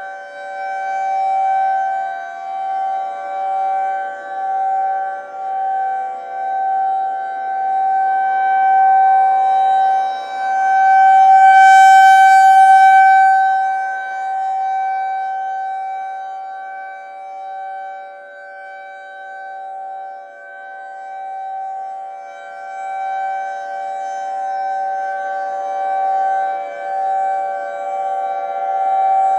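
Federal Signal 2001-SRNB rotating outdoor warning siren sounding a steady Alert tone at a constant pitch. Its loudness swells and fades as the rotating horn sweeps past and away, and it is loudest about twelve seconds in.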